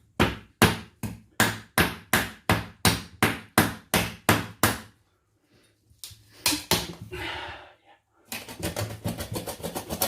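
Cleaver or heavy knife chopping through goose pieces on a cutting board, a steady run of sharp knocks about four a second that stops about five seconds in. A few more hits follow, then a faster rattling clatter near the end.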